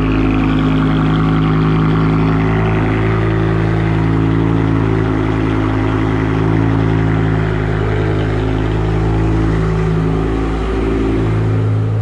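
BMW E60 M5's S85 V10 idling just after a cold start, a steady exhaust drone. It runs rough with the cold-start misfire typical of these engines.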